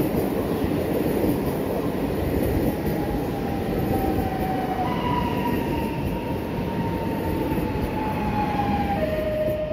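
Pesa Dart ED161 electric multiple unit rolling by, with a steady wheel-and-rail rumble. A thin whine steps up about halfway through, slides slowly down in pitch, then drops lower near the end.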